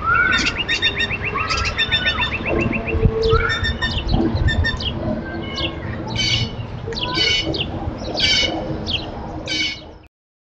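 Blue jays calling over and over, short loud calls coming roughly every half second to second. A rapid trill from a bird runs through the first two and a half seconds. The sound cuts off suddenly near the end.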